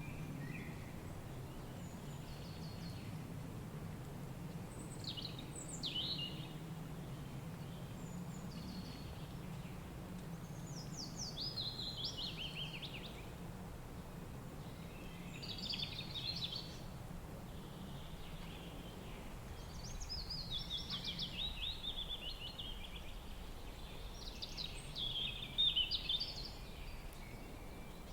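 Songbirds singing short phrases of quick falling notes every few seconds, over a steady low rush of wind.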